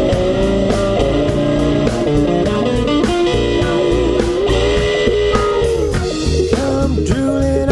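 Blues-rock band instrumental break: an electric guitar plays a lead line with bent, gliding notes over bass and drums.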